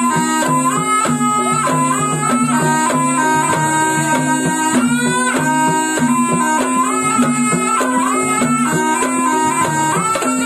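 Live ebeg accompaniment: a slompret, the Javanese double-reed shawm, plays a melody that steps up and down over gamelan, with a steady run of percussion strokes and held low tones underneath.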